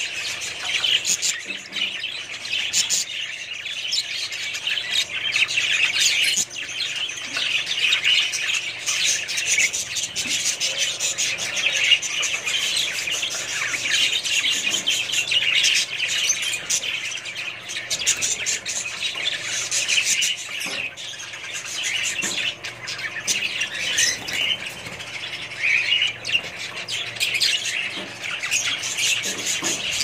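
A flock of budgerigars chattering and chirping without a break, with now and then a short flutter of wings.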